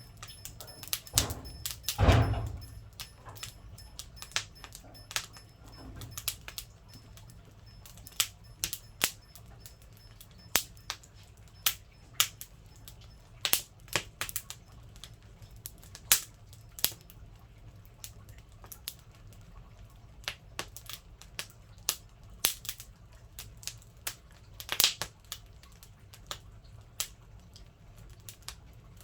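Firewood crackling in a wood stove, with sharp, irregular pops and snaps. A heavier thud comes about two seconds in.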